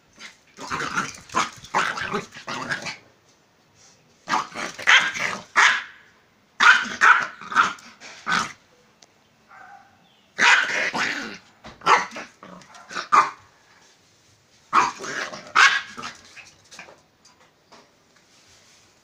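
Small dog barking in about five bouts of quick barks, with short pauses between the bouts.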